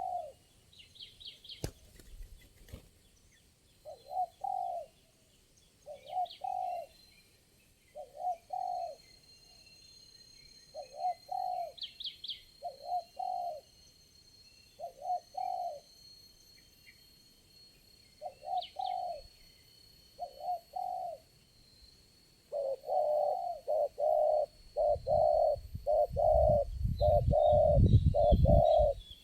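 Spotted dove cooing, short phrases about every two seconds, turning into a faster, denser run of coos in the last several seconds. Smaller birds chirp higher up, and a low rumble sits under the coos near the end.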